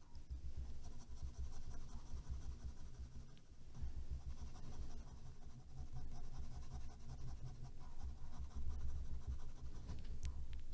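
Ballpoint pen scratching on sketchbook paper in quick back-and-forth hatching strokes, laying in a dark shadow area. The stroking breaks off briefly about three and a half seconds in, then resumes.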